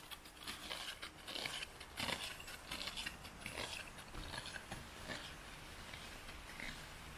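Snowshoe footsteps crunching on packed snow during an uphill climb, about two crunches a second, fading over the second half.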